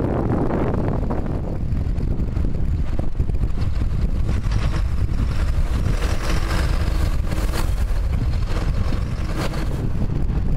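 Large farm tractors (a Fendt 926 and a John Deere 7830) running steadily, with wind rumbling on the microphone.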